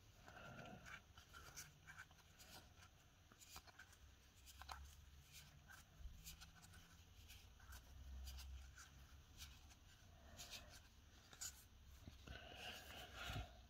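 Faint handling of Pokémon trading cards: card stock sliding and rubbing as cards are shuffled through the hands, with scattered light ticks.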